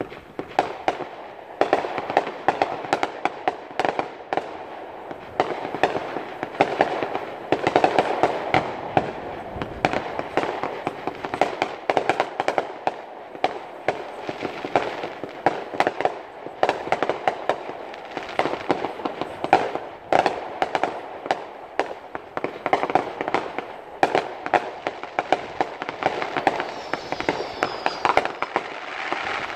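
Fireworks going off in a dense, continuous barrage, with several bangs and crackles a second.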